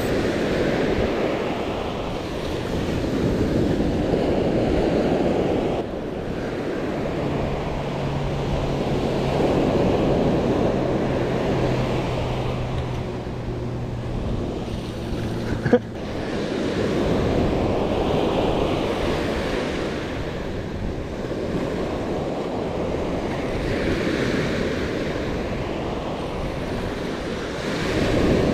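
Ocean surf breaking and washing up a sandy beach, swelling and easing every few seconds, with wind buffeting the microphone. A faint low hum runs through the middle, and one sharp click comes about halfway through.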